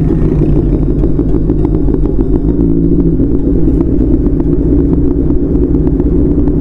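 Motorcycle engine running steadily while riding, the sound holding even throughout with no change in speed.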